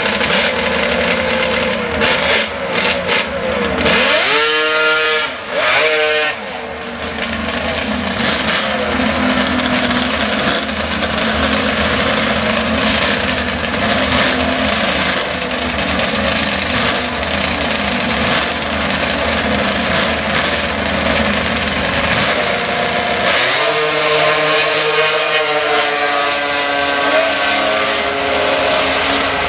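Drag-racing snowmobile engines running loud: revved up and climbing in pitch about four seconds in during a burnout, running while the sleds stage, then opened to full throttle near the end as the sleds launch and accelerate down the strip.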